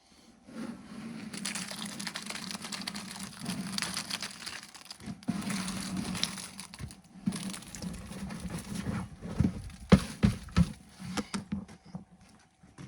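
Wet concrete being tipped and scraped out of a bucket into the ring-beam formwork, in three long rough scraping stretches, followed by a few sharp knocks about ten seconds in.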